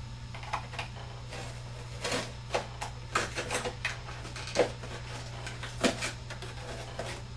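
Cardboard being trimmed with a box cutter: irregular short scraping and snapping cuts, with the cardboard rubbing and knocking as the piece is tried in the box.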